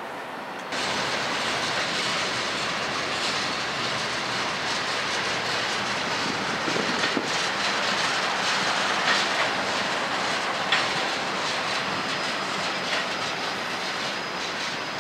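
Freight train cars rolling past on the tracks: a steady rumble and rattle of steel wheels, with a few sharp clacks as wheels cross rail joints. The sound steps up suddenly about a second in.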